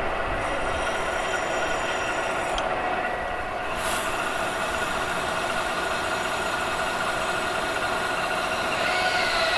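Metal lathe taking a light cut on a bronze ring with a high-speed steel tool bit: a steady mechanical drone with a few steady whining tones. Near the end a brief wavering squeal rises and falls.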